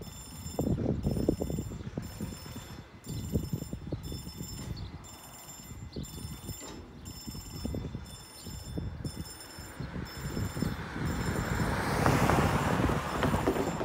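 Railroad crossing warning bell ringing in an even pattern of about one ring a second while the half-barriers are down, over gusts of wind buffeting the microphone. Near the end a rushing noise swells as the barriers start to lift.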